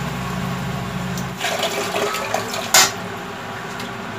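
Water running, over a steady low hum that stops about one and a half seconds in; a single sharp clack about three seconds in.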